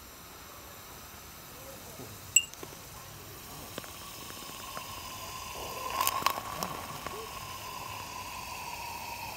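Burning lithium metal reacting with liquid bromine in a glass beaker: a steady hiss and sizzle with a faint high tone in it, slowly growing louder. There is a sharp pop about two seconds in and a run of crackles around six seconds.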